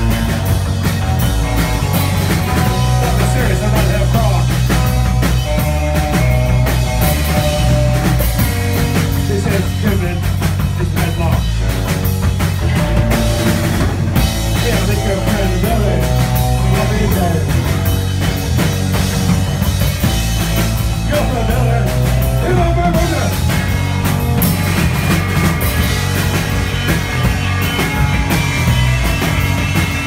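Live rock band playing loud: distorted electric guitar, bass guitar and a drum kit, with a singer's voice over them.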